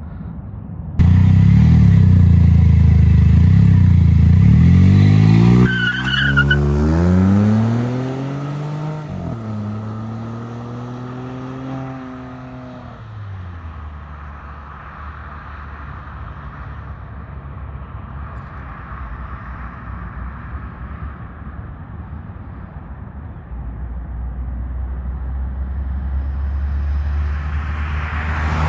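Car engine and exhaust accelerating hard: a loud engine note starts abruptly about a second in and climbs in pitch. It drops at a gear change about nine seconds in, holds briefly, then eases off into a quieter steady cruise.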